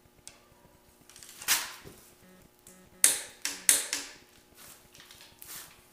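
Sharp clicks from a torque wrench tightening cylinder head bolts on a Ford 400 V8 to the first step of 75 ft-lb. About five clicks come at uneven intervals, three of them close together about three seconds in.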